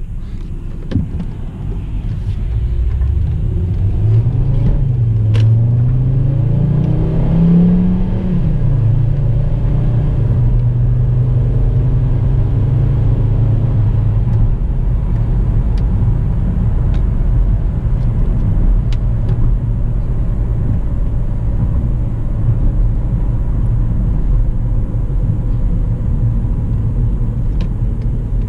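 2009 Volkswagen Jetta's 2.5-litre five-cylinder engine running, its pitch rising over several seconds and then holding steady.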